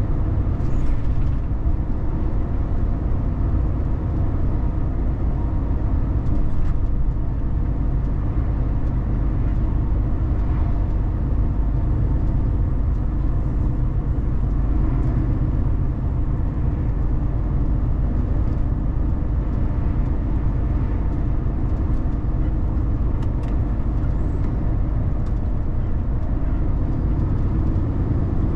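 Car driving along a road: steady low engine and tyre rumble.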